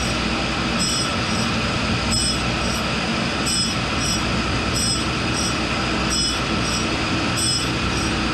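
Tool and cutter grinder running, its Norton 60-grit blue wheel grinding a chuck key in light cuts. A steady machine hum runs under a grinding hiss that swells with a higher ring about every second and a half as the work is rolled back and forth under the wheel.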